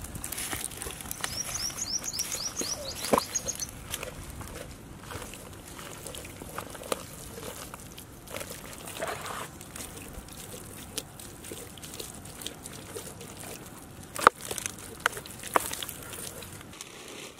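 Hand kneading spice marinade into raw whole chickens in a plastic bowl, making irregular wet squishes and clicks. A bird calls in a fast run of high chirps about a second in.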